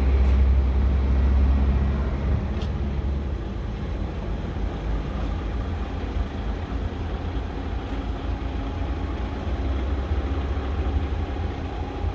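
Scania P-series truck's diesel engine idling steadily with a deep low rumble, louder for the first two seconds and then softer.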